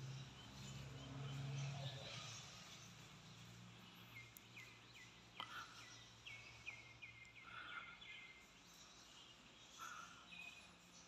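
Faint bird chirps over quiet room tone, with a quick run of short repeated notes in the middle. A low hum sits under the first couple of seconds.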